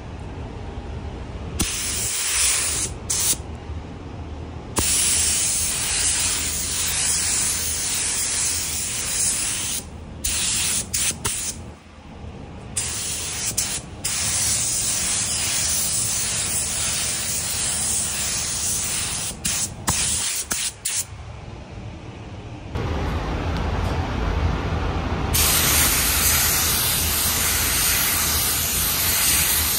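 Compressed-air paint spray gun spraying in long hissing passes that start and stop several times, with short breaks between triggers, over a steady low rumble.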